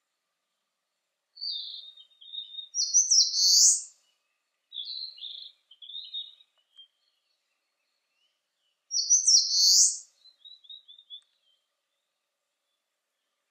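Eastern crowned warbler singing: two loud, high, buzzy phrases about six seconds apart, with softer short notes around each.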